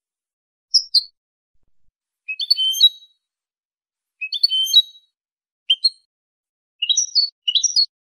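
European goldfinch singing: short bursts of high, quick twittering and chirping notes with dead-silent gaps between them. Two nearly identical phrases come about two seconds apart.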